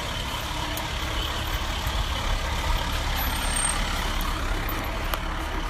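Diesel engine of a Forest Service wildland fire engine driving past close by, running steadily with a low, even engine and road noise.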